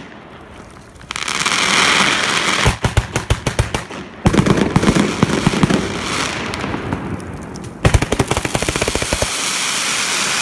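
Fireworks going off: fast strings of sharp bangs, several a second, alternating with stretches of dense hissing crackle.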